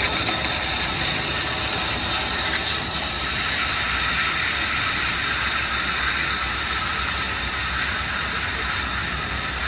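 Concrete boom pump truck running steadily: an even engine rumble with a steady hiss over it.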